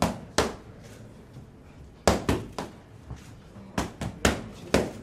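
Boxing gloves smacking focus mitts in a pad-work session. Two punches land right at the start, then after a pause of about a second and a half comes a run of quick strikes.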